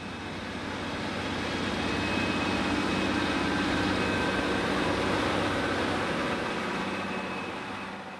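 A diesel train passing: its engine and wheel noise swell to a peak and then fade away.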